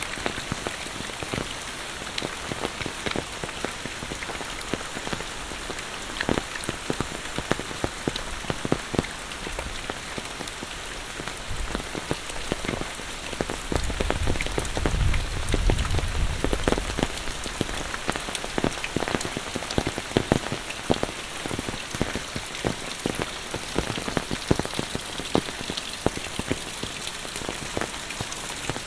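Steady monsoon rain falling, with many close, sharp raindrop ticks. A low rumble swells for about three seconds around the middle.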